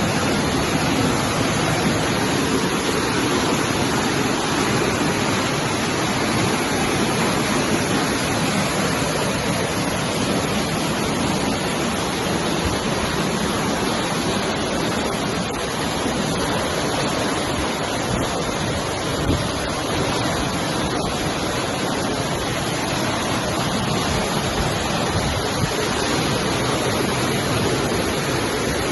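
Floodwater rushing, a steady even sound of flowing water.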